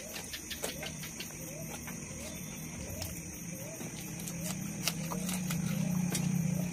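Eating by hand: chewing, with small clicks and taps as fingers scrape rice across a steel plate. Under it runs a low steady hum that grows louder toward the end, and a thin high whine.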